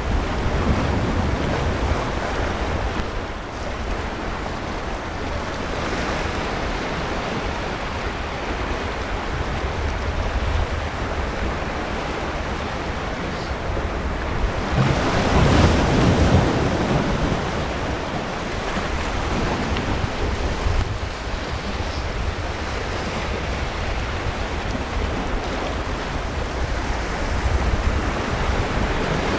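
Sea waves washing onto a beach in a steady surf, with one larger wave breaking about halfway through. A low rumble of wind buffets the microphone underneath.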